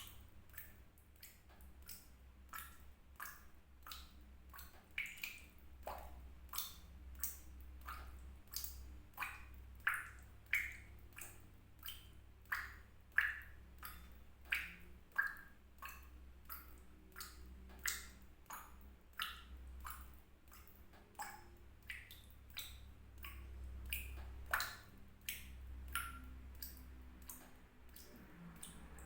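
Water drops falling into water, plinking at an uneven pace of about two a second, each a short click with a brief ring at varying pitch. A steady low hum lies beneath.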